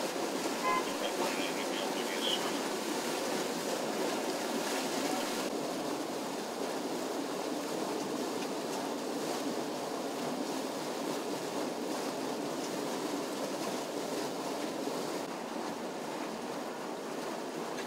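Water gushing and splashing up out of the ground at a sinkhole, a steady rushing noise.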